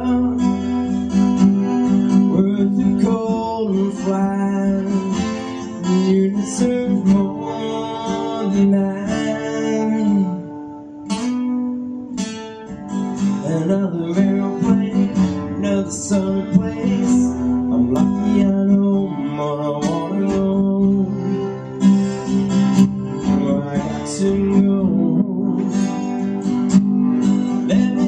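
Music: a strummed acoustic guitar playing the song's chords.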